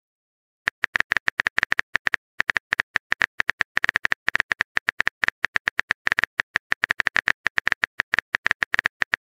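Phone keyboard typing sound effect of a texting-story app: a quick, uneven run of short, alike clicks, one per letter as a message is typed, starting about a second in.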